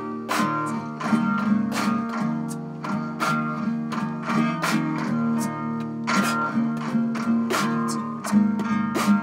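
Background music: acoustic guitar playing plucked notes with a steady beat.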